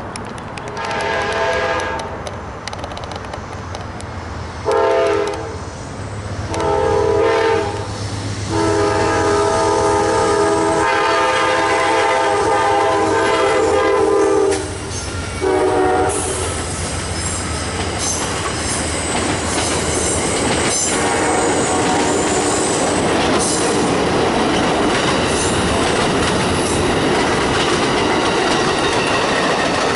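Amtrak GE P42DC locomotive's air horn sounding five blasts as it approaches a grade crossing; the fourth blast is held about six seconds. From about 16 seconds in, the train passes close by, with the diesel drone, wheels clattering over the rail joints and a faint high wheel squeal.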